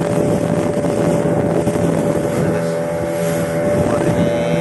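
Small fishing boat's engine running steadily at cruising speed, a constant drone over the hiss of wind and water rushing past the hull.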